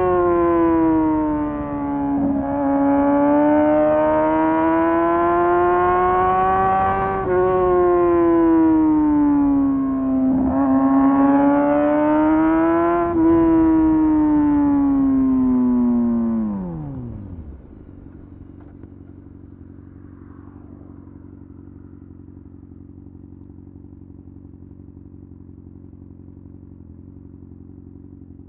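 Motorcycle engine running hard through the gears, its pitch climbing and dropping back at each shift several times. About 16 seconds in it winds down in a falling whine and settles to a steady, much quieter idle.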